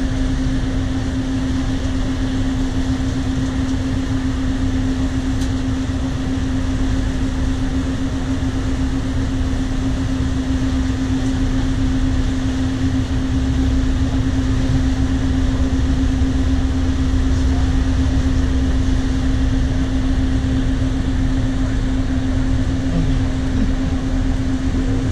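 A water taxi's engine running steadily underway, a constant one-pitch hum over a low rumble, with wind and water noise on deck.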